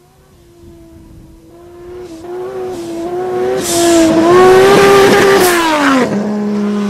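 Nissan Patrol's swapped-in RB25DET turbocharged straight-six under hard throttle. The engine note rises and grows much louder, with a couple of short hisses, then drops sharply in pitch about six seconds in and settles to a steady lower note.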